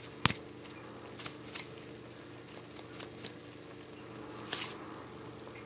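Chicken and tomatoes cooking in a karahi: scattered light clicks and scrapes of a utensil against the pan, with a sharper knock just after the start, over a steady low hum.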